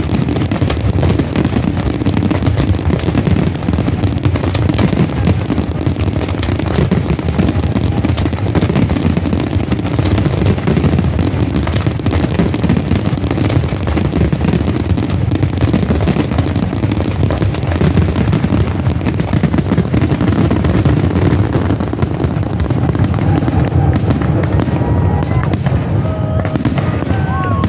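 Fireworks finale barrage: a dense, continuous run of shell bursts and crackle with no gaps, with a few whistling, gliding tones near the end.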